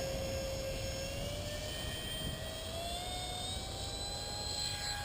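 Whine of a 70mm five-blade electric ducted fan on an RC model jet. Its pitch climbs smoothly for about three seconds, then holds: the throttle is being advanced.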